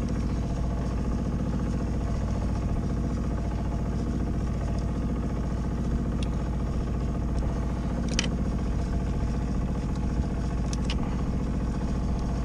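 A steady mechanical drone from an engine or motor, with a few light metallic clicks and clinks as a screwdriver works on a small outboard motor's carburettor linkage, the sharpest about eight seconds in.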